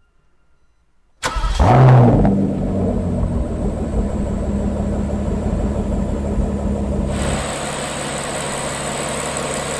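Rolls-Royce Phantom's twin-turbo V12 starting about a second in: the revs flare up briefly, then settle into a steady idle. Near the end the sound turns quieter and hissier.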